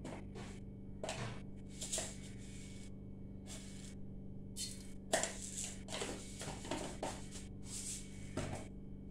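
Hot oil in an aluminium kadai crackling and spitting in short, irregular bursts, over a steady low hum.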